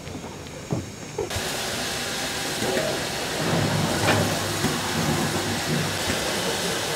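Steam locomotive blowing off steam from its open cylinder drain cocks as it moves off, a loud steady hiss that starts suddenly about a second in, with a low rumble from the engine joining about halfway through.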